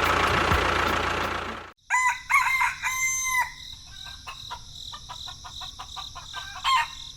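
A loud, noisy stretch that cuts off abruptly, then a rooster crowing from about two seconds in. After the crow come scattered light ticks, over a steady high chirring of insects.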